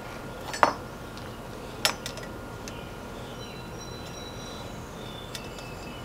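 Two sharp metallic clinks a little over a second apart, the first ringing briefly, as a brazed copper pipe and a tubing cutter are handled.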